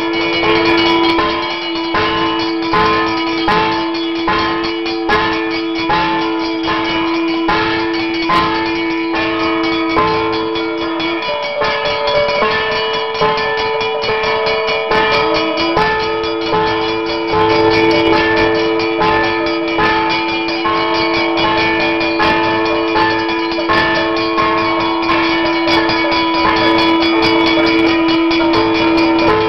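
Temple ritual music: held drone notes with a changing melody over rapid, continuous drum strokes. A brass hand bell rings throughout. The lower drone drops out briefly twice, about a third and half of the way in.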